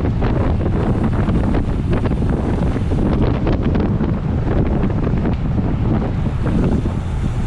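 Heavy wind buffeting on a bike-mounted on-board camera's microphone while racing at speed, with scattered short rattles.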